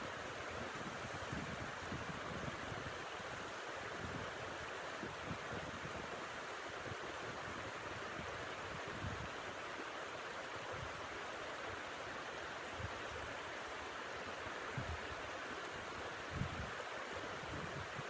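Blizzard wind blowing steadily, with irregular low gusts buffeting the microphone.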